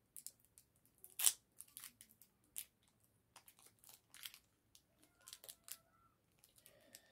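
Foil wrapper of a Pokémon TCG booster pack crinkling and being torn open by hand: a run of quick crackles with one louder rip about a second in.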